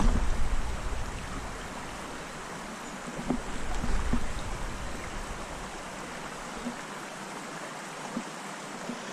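Steady rush of flowing stream water, with gusts of wind buffeting the microphone in the first second and again about three to four seconds in.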